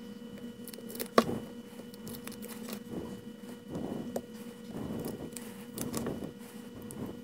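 Blue painter's tape being peeled and crumpled off a painted wooden popping cork: irregular crackling and rustling of the tape, with small clicks and one sharp click about a second in.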